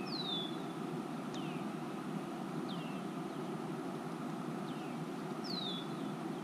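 Steady outdoor background rumble with a songbird's short, downward-slurred whistled call repeated five times. The calls are clearest at the start and near the end.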